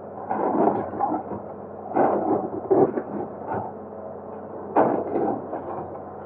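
Hydraulic excavator working over a steady engine hum, with irregular heavy knocks and scraping as it breaks up the concrete bridge.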